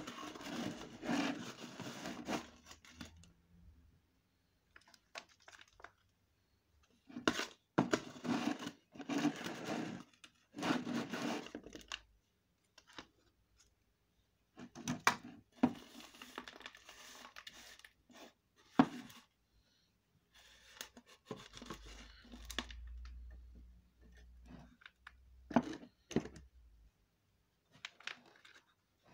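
Gritty pumice-and-potting-soil mix poured from a scoop into a bonsai pot and worked in with the hands: rustling, crunching pours in several bursts of one to a few seconds, with a few sharp clicks of grains.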